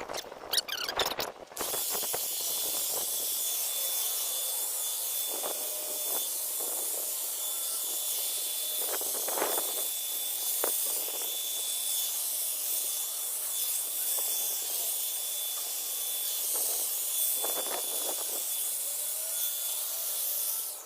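Black & Decker 20-inch electric hedge trimmer running through a shrub in sped-up footage, heard as a steady high hiss with a thin high whine above it and a few brief knocks around the middle.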